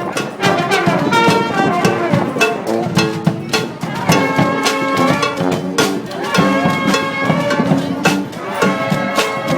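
Street brass band playing a tune, horns in harmony over drums keeping a steady beat.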